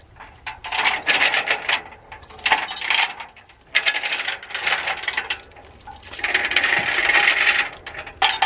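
Steel chain clinking and rattling as it is handled and pulled, in four or five bursts of about a second each.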